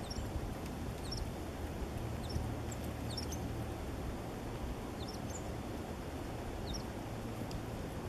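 Short, thin high chirps from small songbirds, scattered in little clusters every second or two, over a steady low rumble.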